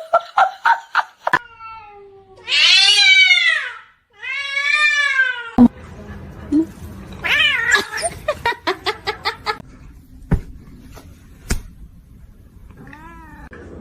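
Cats meowing: two long, drawn-out meows that rise and fall, later a shorter meow and a brief one near the end. Between them are runs of quick clicks or taps.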